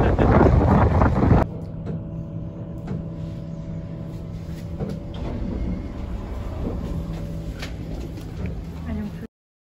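Wind buffeting the microphone for about the first second and a half. It cuts off abruptly to a steady low mechanical hum inside a hotel lift and lobby, with a few light knocks, which stops dead near the end.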